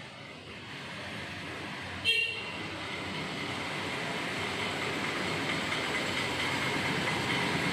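A vehicle horn toots briefly about two seconds in, over street traffic noise that grows steadily louder as a vehicle draws near.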